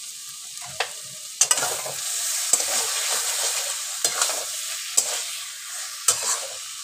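Metal spatula stirring and scraping through fried prawns and water lily stems in a metal wok while the thick mustard-and-coconut paste sizzles. The sizzle grows louder about a second and a half in, with a sharp scrape of the spatula against the pan roughly every second.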